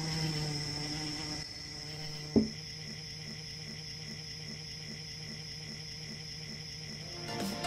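Insect buzzing over a steady high cricket trill. About two and a half seconds in there is a single sharp knock, then faint even pulses about three a second while the trill goes on.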